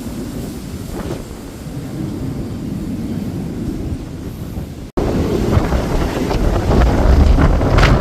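Strong wind buffeting the microphone as a low, gusty rumble. About five seconds in the sound cuts out for an instant and comes back louder and gustier.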